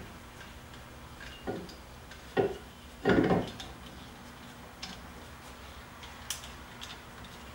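Hand tool clinking and scraping on the Torx retaining screw of a brake rotor at the wheel hub as the screw is driven back in: a few short metal knocks, the loudest about three seconds in, then a couple of faint clicks.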